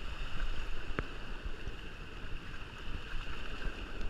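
Steady rushing noise of moving water and wind buffeting the microphone, with one sharp click about a second in.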